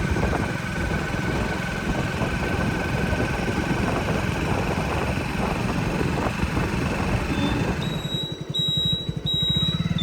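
Heavy diesel engine running at a steady speed, with a steady high whine over it. About eight seconds in, a string of short, evenly spaced high beeps starts.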